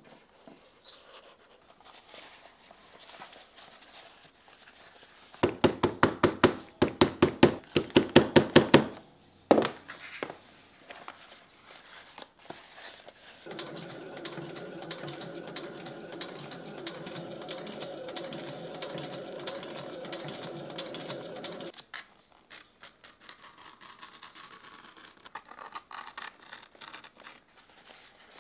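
Post-bed sewing machine stitching a leather boot upper, running steadily for about eight seconds in the second half. Before it comes a quick run of loud knocks, about six a second, lasting some three seconds.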